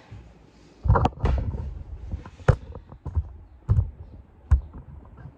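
Handling noise as the camera is picked up and moved round to the front of the grooming table: a handful of sharp knocks and clicks over dull thumps, the loudest about a second apart, with smaller ticks between.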